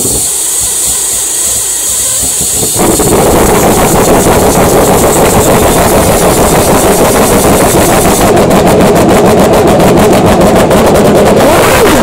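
Formula One car being started with an external starter: the starter whirs, and at about three seconds the engine catches and runs loud and rough, holding steady from there on.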